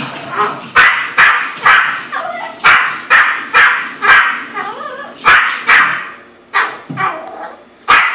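Yorkshire terrier barking repeatedly in sharp barks, about two a second, with a few slightly longer pauses near the end.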